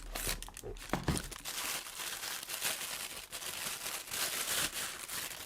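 Packaging crinkling and tearing as a guitar pedal is unpacked from its box, with a knock about a second in.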